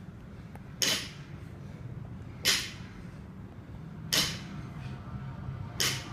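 A 165 lb (75 kg) bumper-plate barbell touching down on a rubber gym floor four times, about every second and a half, once for each sumo deadlift rep.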